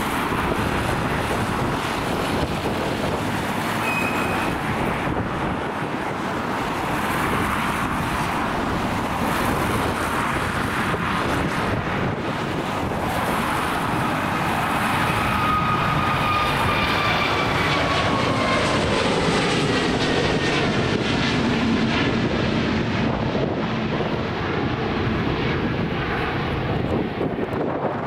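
Airbus A320neo's twin turbofan engines at take-off thrust: steady jet noise through the take-off roll and climb-out. A whine falls in pitch as the aircraft passes, about halfway through.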